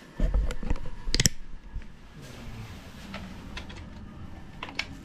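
Camera being picked up and handled: a burst of bumps and rubbing in the first second or so, then a few scattered light clicks.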